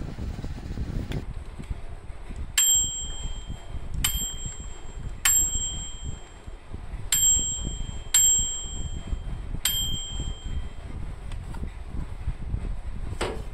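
The small domed bell on a Galanz microwave oven's mechanical timer switch dinging six times, a second or two apart, each a clear high ring that fades over about a second. Low handling noise runs underneath, with a knock near the end.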